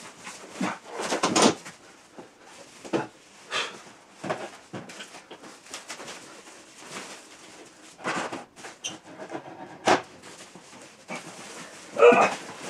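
Large plastic protective wrap from a TV's packaging being handled and folded, rustling and crinkling in irregular bursts, loudest near the start and near the end.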